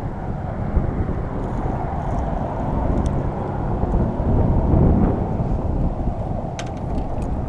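Wind buffeting the microphone of an action camera on an open boat: a loud, steady, rumbling rush.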